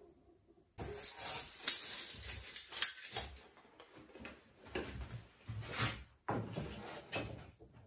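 Scraping, rustling and knocking as a long white wall panel is slid along a miter saw table and lifted off the workbench, loudest in the first few seconds with a couple of sharp clicks; the saw itself is not running.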